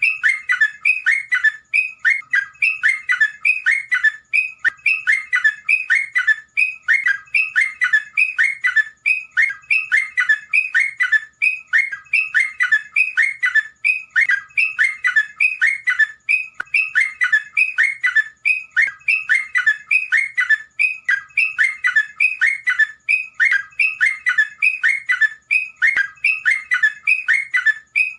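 Terocok (yellow-vented bulbul) singing: quick runs of chirping notes repeated over and over without a break, a looped masteran recording of its song.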